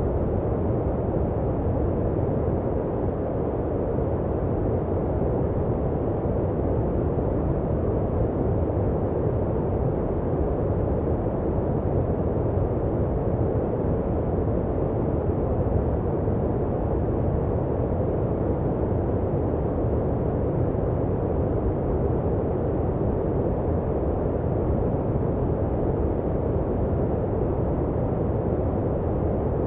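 Steady, unchanging generated noise, sold as white noise but deep and muffled, with little high hiss.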